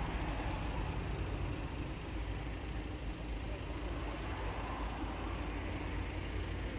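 Steady low rumble of a car on the road: engine and tyre noise, with no distinct events.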